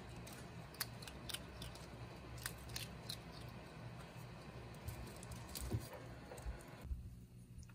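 Squirrel monkey chewing a crunchy treat: faint, sharp crunching clicks at irregular intervals over a low steady hum.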